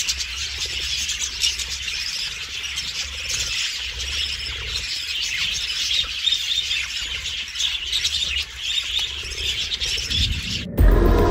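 Many budgerigars chattering and chirping at once in a continuous, dense twitter. About half a second before the end it cuts off suddenly and music begins.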